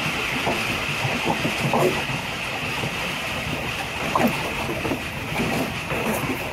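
Tezgam passenger train running along the track, heard from its rear coach: a steady rushing noise of wheels and wind over a low rumble, with a few irregular knocks.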